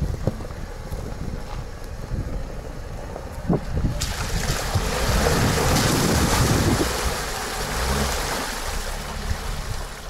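Lada Niva five-door 4x4 driving slowly through a muddy puddle in first gear, low range, almost without throttle. A low rumble with wind on the microphone, then about four seconds in a sudden rush of splashing water and mud from the wheels, loudest a couple of seconds later and easing toward the end.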